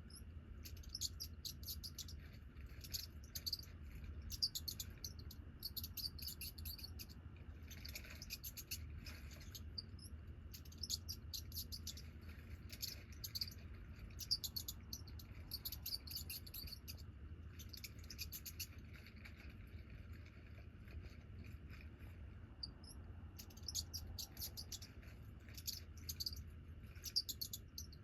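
High-pitched chirps and squeaks in repeated bursts of about a second each, from a video made for cats being played back, over a steady low hum.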